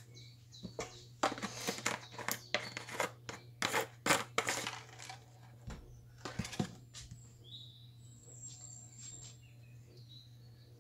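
A spatula stirring broth and vegetables in a nonstick stockpot: a quick run of clicks, scrapes and small splashes against the pot, dying down after about seven seconds.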